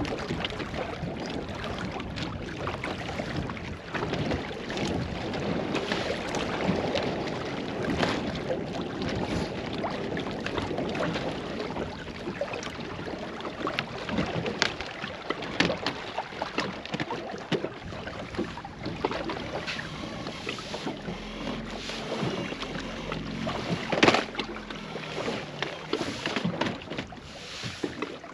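Sounds of a small fishing boat on the water: a steady wash of water and wind noise, with scattered small knocks and clicks and one sharper knock near the end.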